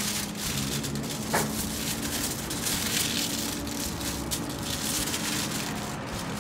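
Aluminium foil crinkling and rustling as hands fold it around a potato, with many quick, irregular crackles.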